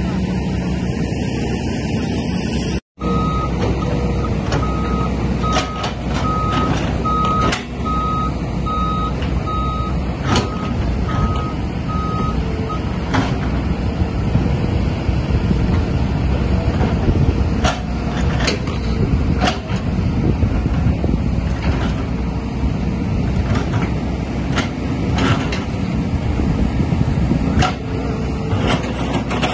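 Heavy diesel excavator engine running under load, with sharp metallic clanks now and then. After a split-second dropout about three seconds in, a reversing alarm beeps about once a second, roughly ten times, then stops.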